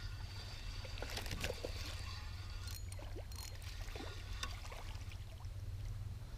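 Spinning reel being cranked as a small largemouth bass is reeled in, the fish splashing at the surface, with scattered clicks over a steady low rumble.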